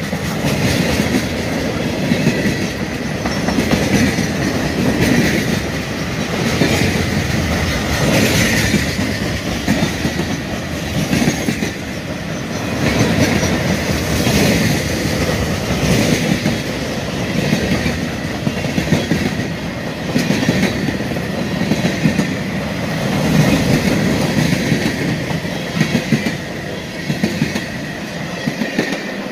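Freight cars of a mixed freight train rolling past at close range: a steady rumble of steel wheels on rail, with wheel clacks in a regular rhythm every second or two and a faint thin squeal.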